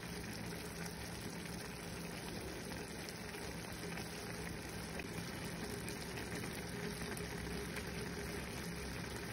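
Minced chicken and vegetable filling simmering in a pan, with a steady fine sizzling and bubbling crackle over a faint steady hum.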